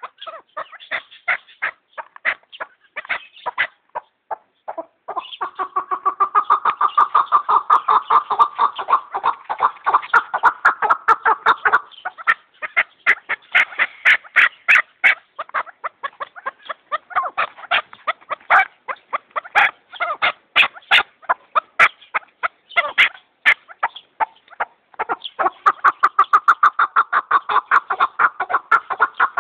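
Chukar partridge (chakor) calling: a rapid series of clucking "chuck" notes, in long runs broken by short pauses.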